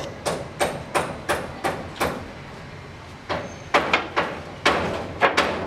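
Repeated hard knocks with a short ringing tail, about three a second, in two runs broken by a pause of about a second: building work on a tiled roof, with hammer-like strikes on clay tile or timber.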